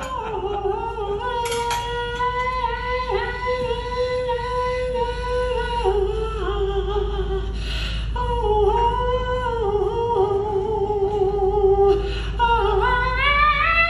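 Live acoustic blues: a single melody line of long held notes that slide from one pitch to the next, with a long falling glide at the start and a rising one near the end, over steady accompaniment.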